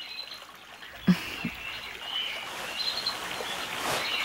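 Quiet background ambience with a soft low knock about a second in and a few faint, short high chirps.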